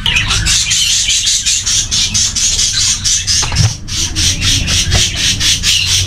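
A flock of budgerigars chattering: a dense, continuous stream of short, sharp chirps and calls from many birds at once.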